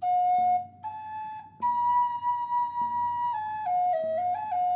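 Flute playing a slow melody of long, steady notes. It opens with a short note and climbs to a higher note held for nearly two seconds, then steps down through several lower notes, with brief breath pauses between phrases.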